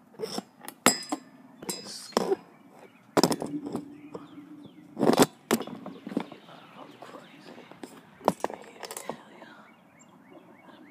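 Irregular knocks and bumps with light metallic clinks, spaced unevenly and loudest in the first half, with a short low steady hum about three seconds in.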